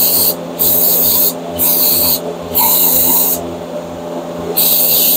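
Repeated bursts of hissing, each under a second or so with short gaps, the last one longer, over the steady low hum of a shop heater burning used oil.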